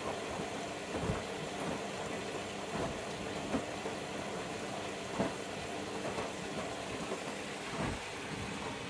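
Bosch Logixx 8 washing machine turning its drum while water runs in, the fill tumble at the start of a towels wash. A steady rushing hiss with a low hum, and a few soft knocks as the load turns over.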